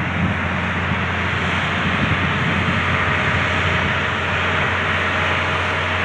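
Crawler bulldozer's diesel engine running steadily under load as the machine pushes through grass and soil, a constant low hum with a dense rumble over it.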